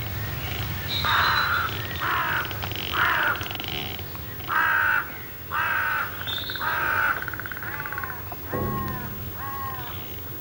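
Crows cawing, a harsh call roughly every second, the last few calls shorter and arched in pitch.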